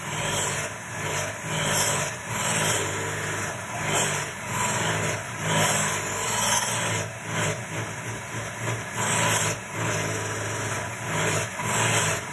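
Electric hand mixer running, its beaters churning through thick cheesecake batter as eggs are added. The motor hums steadily, swelling and dipping in loudness about once a second.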